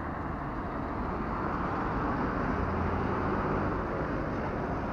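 Steady street noise from road traffic, with a low engine hum, swelling a little around the middle.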